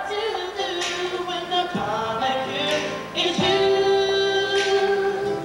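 A young woman singing a slow song solo into a microphone, with sustained notes, holding one long note near the end.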